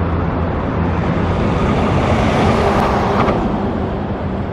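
Road traffic: a steady low rumble with a vehicle passing, loudest a little past halfway.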